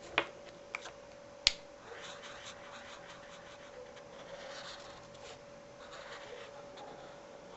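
Felt-tip marker tip scratching and rubbing across paper as a line and a dot are drawn. Two sharp clicks come in the first second and a half.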